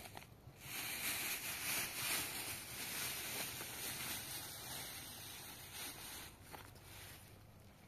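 Clear plastic bag crinkling and rustling as it is handled. It starts about half a second in and fades out about six seconds in.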